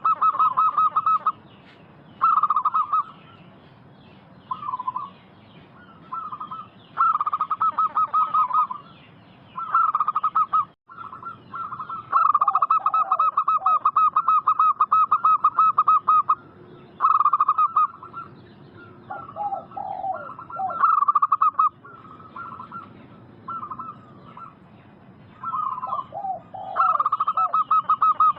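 Zebra doves (perkutut) cooing: a string of short phrases of quick, rattling notes, one after another with brief gaps, and lower falling notes now and then.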